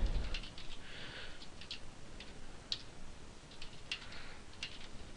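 Computer keyboard being typed on: soft, irregular key clicks.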